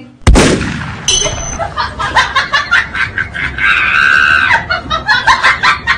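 A sudden loud smack sound effect, like a slap, then several seconds of rapid giggling laughter with a high squeal about four seconds in.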